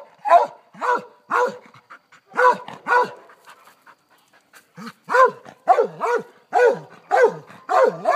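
Dog barking repeatedly at a cat, about two barks a second, with a pause of more than a second about halfway through.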